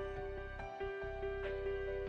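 Soft instrumental background music: a steady held drone under a slow melody of sustained notes.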